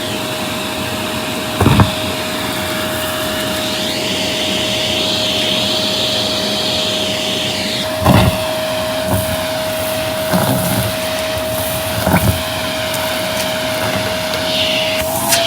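Vacuum cleaner running steadily with a constant motor whine, its rushing airflow sound swelling and fading as the nozzle works the floor. Four short knocks or bumps break through, the loudest about 2 and 8 seconds in.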